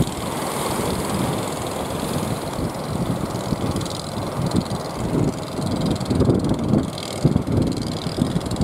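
Wind gusting and buffeting the microphone, with irregular low thumps that grow stronger after about three seconds, over a steady rush of surf.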